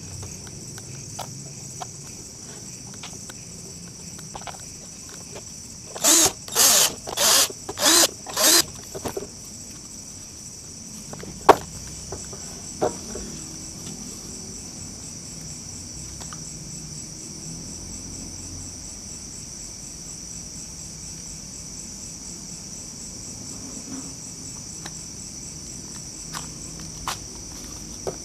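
Steady high-pitched chirring of insects throughout, with a quick run of five loud short bursts about six seconds in and a single sharp knock a few seconds later.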